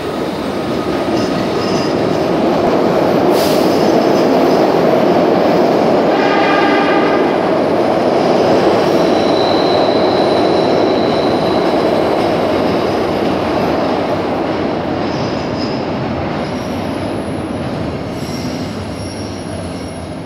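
A Broad Street Line train of 1980s Kawasaki BI-V subway cars pulls out and runs past: steady wheel and car noise builds over the first few seconds and then fades as the train leaves. A short pitched tone, likely its WABCO AA-2 horn, sounds about six seconds in, and a thin wheel squeal follows around ten seconds.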